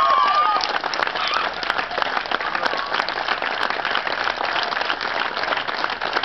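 Crowd applauding, with high-pitched shouts of joy that die away in the first half second, then steady, dense clapping.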